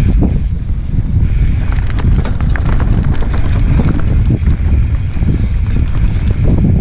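Mountain bike ridden down a dirt singletrack, heard from a helmet camera: a loud, steady rumble of wind and tyres on the trail, with a running clatter of knocks and rattles as the bike hits roots and bumps.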